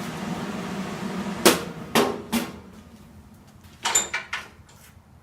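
Six sharp metal knocks in two groups of three, about two seconds apart, on a socket freshly welded to an extension, which is then judged strong. A steady hum fades out under the first group.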